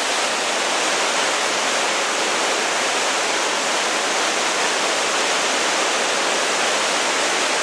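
A waterfall crashing down close by, a loud, steady rush of falling water that is even and unbroken.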